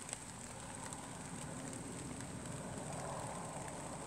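Steady outdoor background noise, an even hiss with faint scattered clicks and no clear single source.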